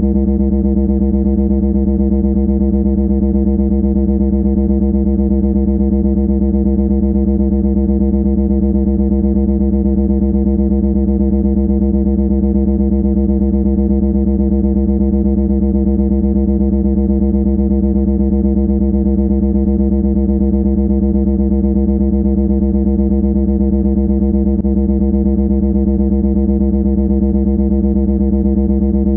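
Loud, steady buzzing drone held at one low pitch, harsh with overtones and never changing; played as an annoying noise.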